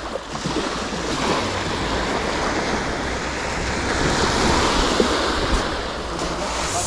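Sea waves washing against the shore, with wind buffeting the microphone as a steady low rumble.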